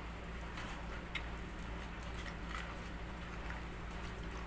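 Faint, scattered wet clicks of fingers pulling the gills out of a raw milkfish (bangus), over a steady low hum.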